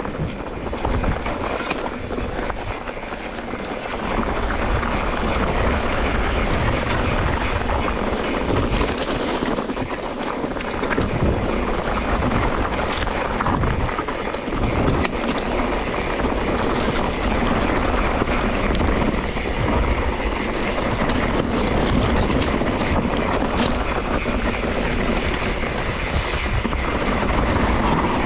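Steady rush of wind buffeting the microphone and tyre noise from a mountain bike riding along a dirt trail, with a few sharp knocks from the bike over bumps.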